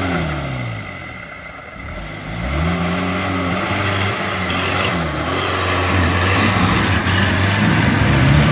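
Toyota Land Cruiser BJ40's diesel engine revving hard under load on a steep mud climb. The revs fall away early, then climb again about two and a half seconds in and are held high, loudest near the end as a tyre spins and throws mud.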